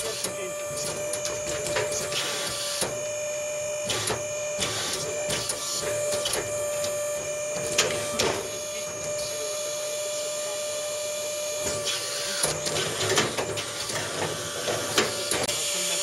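Wood-Mizer WB2000 wide band sawmill running between cuts with a steady machine whine. Clanks and knocks sound as the squared cant is turned on the bed, loudest about eight seconds in and again several times near the end.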